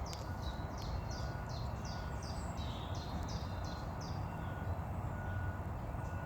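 A songbird repeating a short, high, falling note about three times a second, stopping about four seconds in, over a steady low rumble of outdoor background noise.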